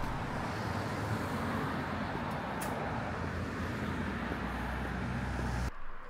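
Steady street traffic noise, a low rumble of passing cars, that cuts off abruptly near the end.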